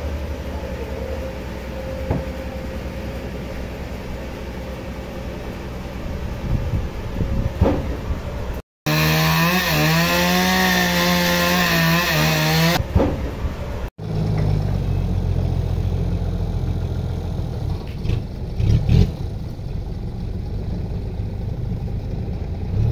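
A steady low engine hum, then after a cut about four seconds of a gas chainsaw running at high revs as it cuts into a large log, its pitch wavering under load. After another cut a Toyota forklift's engine runs steadily, with a few knocks.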